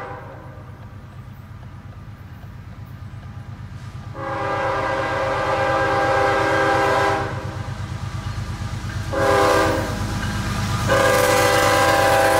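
CSX GE ES44AC diesel locomotive sounding its air horn for a road crossing: a long blast, a short one, then another long one starting near the end. This is the standard grade-crossing warning. Underneath, the engine's low rumble grows steadily louder as the train approaches.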